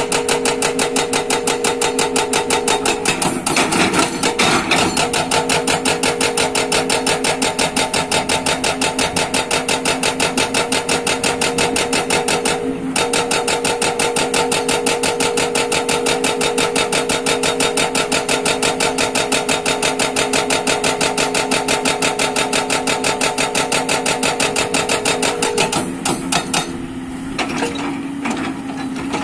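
A JCB excavator's hydraulic rock breaker hammers on rock in a rapid, steady rhythm over the drone of the machine's engine. The hammering breaks off briefly about 13 seconds in, then grows irregular and quieter near the end.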